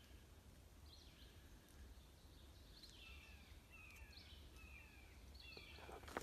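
Faint woodland birdsong: a distant red-eyed vireo singing short phrases, one about every second and a half, with other birds calling softly in between.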